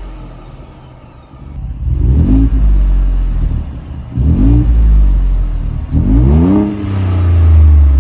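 Ford Bronco's 2.7-litre twin-turbo V6 running through a freshly fitted MBRP cat-back exhaust: it idles, then is revved three times, the pitch rising and falling back each time, with a deep tone.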